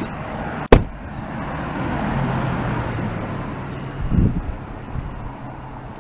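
A vehicle door slams shut with one sharp bang about a second in. After it, an engine hums steadily under road noise, with a softer thump near the end.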